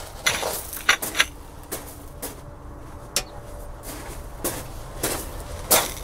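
A series of scattered knocks and clicks, several to the second at most and uneven, as the pool equipment control panel is opened and its power switched back on.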